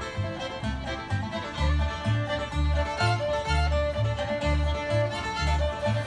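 Bluegrass trio playing live: fiddle carrying the melody over banjo picking and upright bass notes about two a second.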